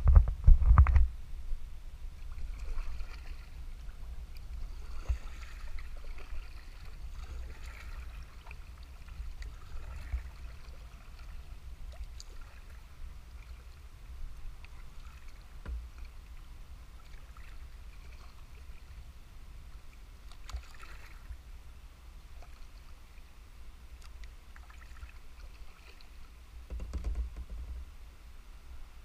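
Paddling a Sun Dolphin kayak on calm river water: faint paddle dips, drips and water lapping along the hull over a steady low rumble. There are louder bumps and rumbles in the first second and again near the end.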